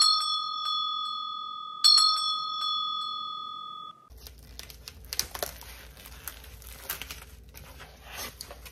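Two bright bell-like chimes about two seconds apart, each ringing down, cut off abruptly about four seconds in. Then plastic wrap and packaging crinkling as a beef roast is pulled out of its store tray.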